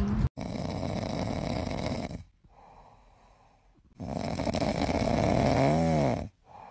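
A cat snoring: two long, rasping breaths of about two seconds each, with a quieter pause between them. The second breath ends in a short groan that rises and falls in pitch.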